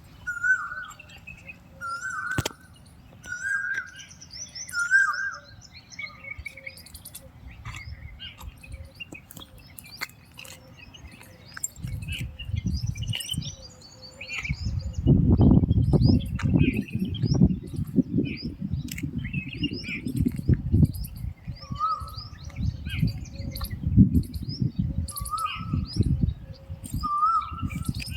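Several birds chirping and calling, with a short call repeated about once a second near the start and again near the end. From about halfway through, a loud low rumbling noise runs under the birdsong.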